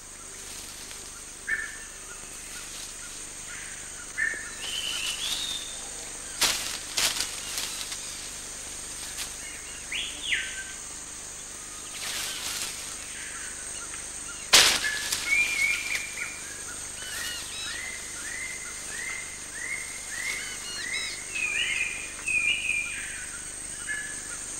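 Rainforest ambience: birds calling with scattered chirps and whistled notes, including a run of short rising notes about twice a second in the latter half, over a steady high insect hiss. A few brief sharp cracks break through, the loudest about two-thirds of the way in.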